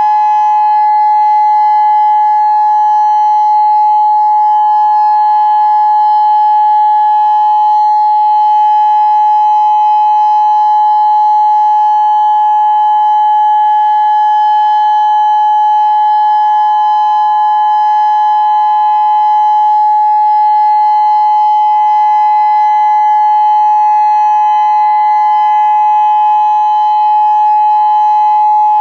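Federal Signal Modulator 6024 electronic outdoor warning siren sounding its Full Alert signal: one loud, steady tone that does not rise or fall.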